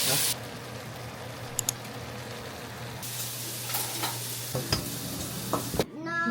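Eggs sizzling as they fry in a pan, with a few light clicks and knocks of a utensil.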